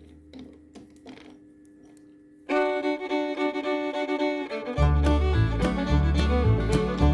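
Background fiddle music in a bluegrass style starts abruptly about two and a half seconds in, with a bass and beat joining about two seconds later. Before it, only a few faint taps.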